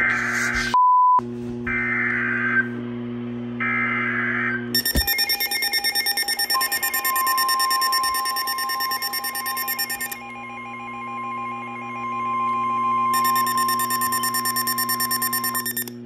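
NOAA Weather Radio receivers sounding a Severe Thunderstorm Warning: three short bursts of the buzzy SAME digital header, then the radios' pulsing alert beeping, over which the steady single-pitch 1050 Hz warning alarm tone sounds for about nine seconds. The beeping pauses for a few seconds midway.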